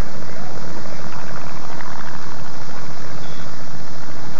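Propeller racing plane's engine running: a steady, rough drone.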